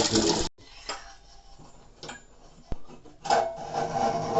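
Rushing water that cuts off abruptly about half a second in. Then quiet handling with light clicks and one sharp tick. From about three seconds in, metal parts of the water heater clink and scrape as they are handled during reassembly.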